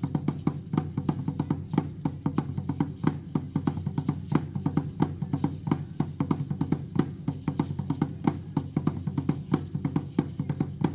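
Live drumming with rattling percussion, a dense, even run of many hits a second over a steady low drone.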